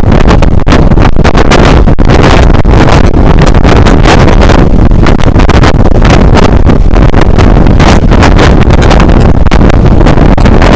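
Loud wind buffeting the microphone outside the window of a moving passenger train, over the steady rumble of the train running on the rails.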